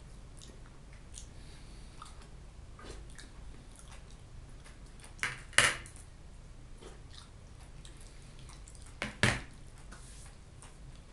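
A metal fork scraping and tapping on a ceramic plate, with soft chewing. About five and a half seconds in and again about nine seconds in, dishes clink loudly, two quick knocks each time.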